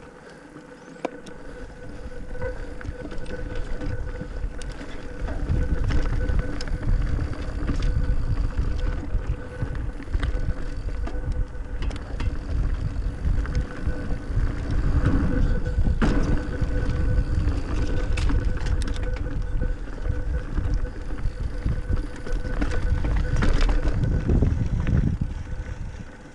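Mountain bike riding fast down a rocky singletrack, heard from the rider's own bike: heavy wind buffeting and trail rumble on the camera microphone, with clicks and rattles from the bike over the rocks. It grows much louder about five seconds in as the speed picks up.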